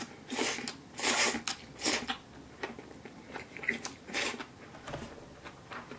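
Person slurping spaghetti noodles off a fork: three loud slurps in the first two seconds and another about four seconds in, with quieter chewing clicks between.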